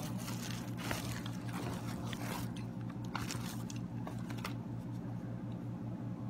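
Bubble wrap crinkling and rustling as it is handled and pulled off a camera shooting grip, dying away about four and a half seconds in. A steady low hum runs underneath.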